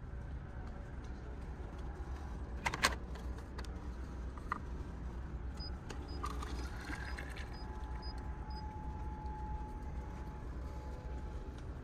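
Steady low hum of a ferry's engines running at sea. A sharp click about three seconds in, then a drinks dispenser filling a paper cup with hot hojicha, with a faint run of short high beeps while it runs.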